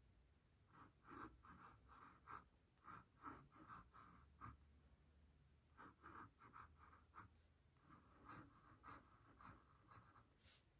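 Faint scratching of a fountain pen nib on sketchbook paper, drawn in short quick strokes with brief pauses between clusters.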